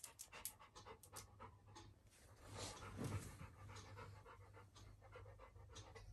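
Labrador retriever panting, faint quick breaths through an open mouth, a little louder about three seconds in.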